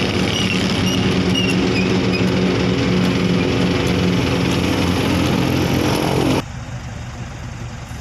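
Isuzu Elf NKR 55 light truck's four-cylinder diesel engine running steadily; a little over six seconds in it drops abruptly to a quieter, lower hum.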